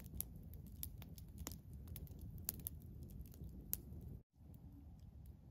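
Wood campfire crackling: irregular sharp pops and snaps over a low steady background.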